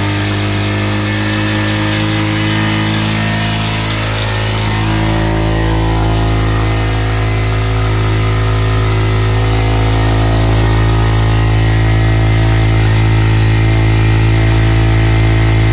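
Road Prince Wego 150 motorcycle's 150 cc engine running steadily at idle, its note shifting slightly about five seconds in and growing a little louder toward the end.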